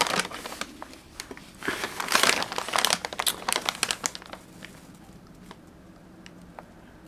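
Crinkling of wrapping as a newly bought cup is unwrapped, in bursts at the start and again from about a second and a half to four seconds in, then a few light clicks and handling taps.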